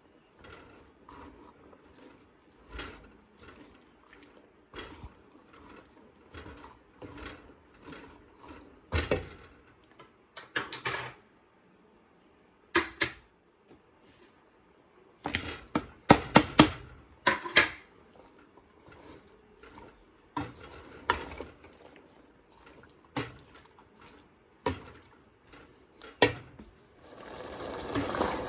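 Scattered clinks and knocks of kitchen utensils and dishes being handled. Near the end, water starts to run steadily.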